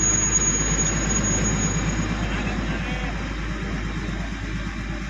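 Diesel engine of an Indian Railways utility track vehicle running steadily with a fast low throb as the vehicle moves along the track, easing slightly toward the end. A thin high whine sounds over it for the first two seconds, then stops.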